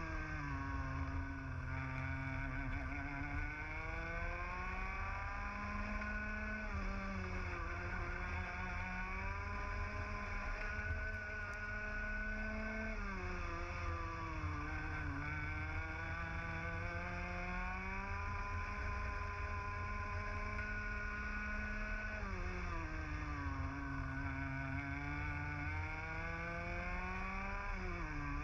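Onboard sound of a 125cc two-stroke TAG kart engine at race pace. The revs climb steadily along each straight and drop sharply into the corners, about four times.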